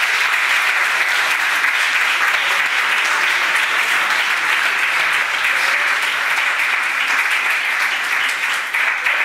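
A room full of students clapping their hands in steady, dense applause.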